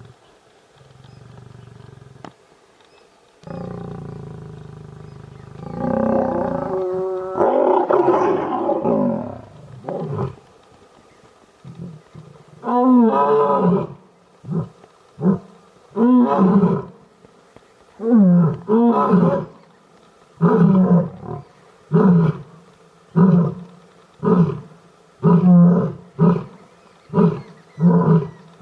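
Asiatic lion roaring: long, drawn-out moans build up over the first ten seconds, then give way to a series of short, loud grunts about one a second that come closer together near the end.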